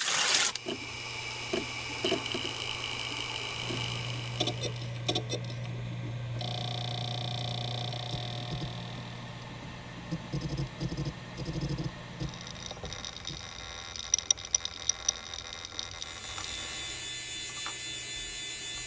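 A run of short office-machine sound effects: a steady electric hum with high whining tones and scattered clicks. The sound changes character every few seconds as one machine gives way to the next.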